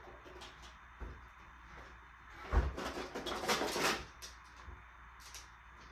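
Marbles clicking and rattling through a plastic marble run, with a louder clatter about two and a half seconds in that opens with a thump and lasts about a second and a half.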